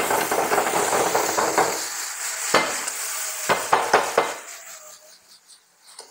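Sliced onions caramelizing with sugar and soy sauce, sizzling and scraping in a frying pan over a gas flame as the pan is worked, with a few sharp knocks of the pan between about two and a half and four seconds in; the sizzling dies down near the end.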